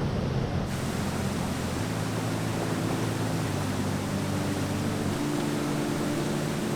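Background music of held low chords that change every second or two, over a steady rushing hiss.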